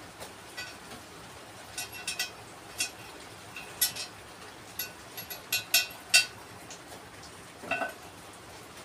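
Irregular sharp clinks and taps from a ceramic washbasin being handled while a tap and flexible hose are fitted to it: about a dozen hard knocks with a brief ceramic ring, loudest about four and six seconds in.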